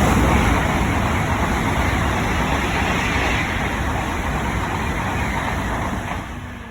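Shinkansen passing through the station at speed without stopping: a loud, steady rushing noise that holds for about six seconds and dies away near the end.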